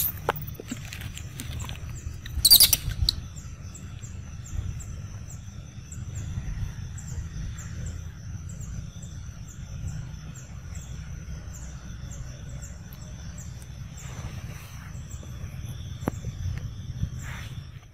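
Young macaques play-wrestling, with two short, sharp squeals, one right at the start and one about two and a half seconds in. Underneath runs a steady faint high buzz with a quick chirp repeating about three times a second, and a low rumble.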